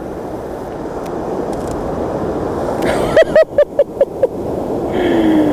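Steady, slowly swelling wash of ocean surf. About three seconds in, a person gives a short burst of laughter, six or seven quick 'ha's.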